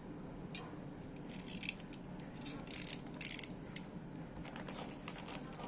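Small items and packaging being handled during an unboxing: scattered light clicks and taps with brief rustles, the loudest rustle about three seconds in, over a steady low background noise.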